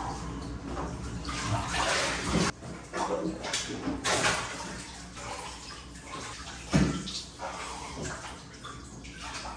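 Water sloshing and splashing in a filled bathtub as a person shifts and then stands up in it, with one loud splash about seven seconds in.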